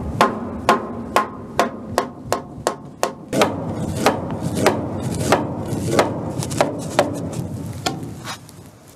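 Repeated hammer blows on a timber door-frame member, about two a second at first, then slower and uneven, dying away near the end: knocking a tenon joint loose to pull the frame apart.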